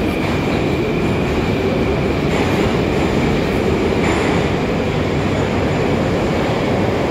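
Moscow Metro train running through the station, a steady rumble with a faint high whine, heard in the echoing station hall.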